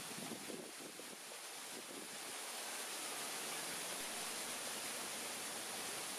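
Steady outdoor rushing noise with a bright high hiss, a little louder after about two seconds.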